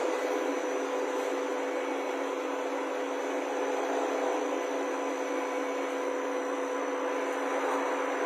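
CNC lathe running with a steady whir and a steady low hum, unchanging throughout.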